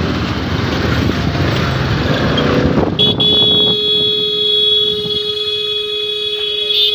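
Scooter engine and traffic noise while riding. About three seconds in, a vehicle horn starts and is held steadily for about four seconds, then cuts off suddenly.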